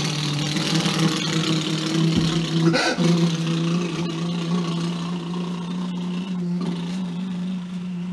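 A man imitating a running engine with his voice: a steady, rough drone held at one pitch, briefly broken about three seconds in.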